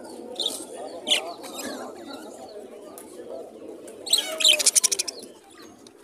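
Caged budgerigars chirping and chattering, with low cooing underneath. Sharp chirps stand out about half a second and a second in, and a loud rapid burst of short sharp notes or wingbeats lasts about a second, around four seconds in.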